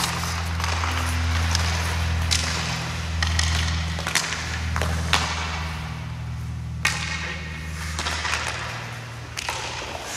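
Hockey goalie's skate blades scraping and swishing on the ice as he shuffles and pushes across the crease, in short irregular strokes, over a steady low hum.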